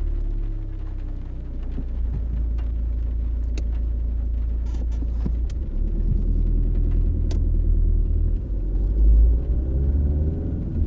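Car cabin ambience while driving: a steady low engine and road rumble, with the engine note shifting in pitch near the start and again near the end.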